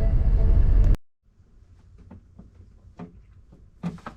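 Loud background music that cuts off abruptly about a second in, leaving a quiet room with a few faint knocks and clicks.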